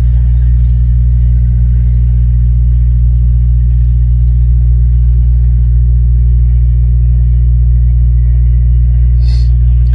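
Steady low drone of a car driving at speed, heard from inside the cabin.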